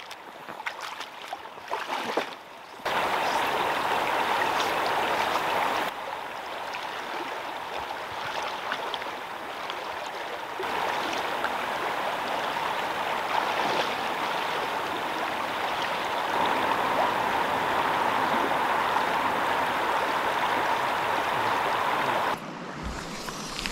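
Rushing water of a river rapid: a steady, even rush that steps abruptly louder and quieter several times.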